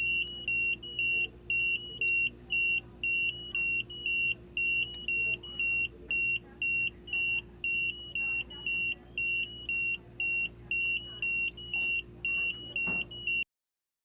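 Intensive-care-unit alarm beeping at a high pitch, about two beeps a second, over a steady low hum. It cuts off suddenly near the end.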